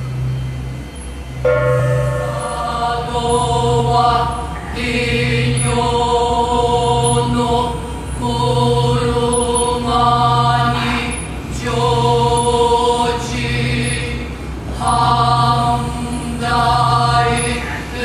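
Stage music: chanted singing in long held notes over a low drone that throbs about once a second. The chant comes in about a second and a half in.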